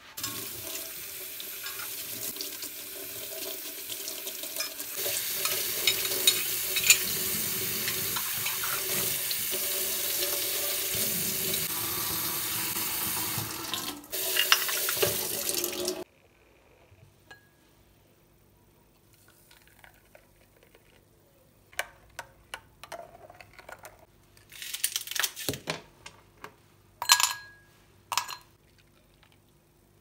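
Water running from a kitchen tap into the sink, with sponge scrubbing on soapy stove grates, growing louder a few seconds in and stopping abruptly after about sixteen seconds. Then, in near quiet, a few light clinks of a spoon and glass.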